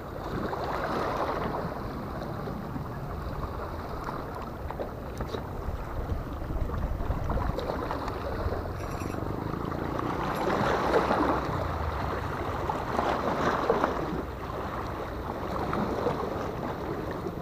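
Sea water washing and lapping against the rocks of a breakwater, swelling louder a few times, with wind rumbling on the microphone.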